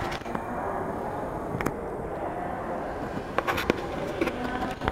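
Steady background hubbub of a large indoor hall, with a few sharp clicks about a second and a half in, around three and a half seconds in, and near the end.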